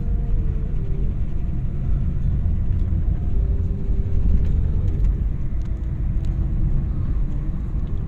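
Car driving along a road, heard from inside the cabin: a steady low rumble of engine and tyres, with a faint hum that shifts slightly in pitch.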